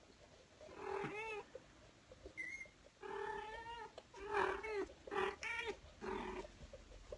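A mother cat meowing repeatedly: about five drawn-out, bending meows, with one short high chirp between the first and second.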